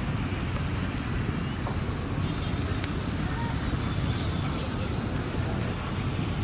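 A steady low engine rumble with wind buffeting the microphone, and faint voices now and then.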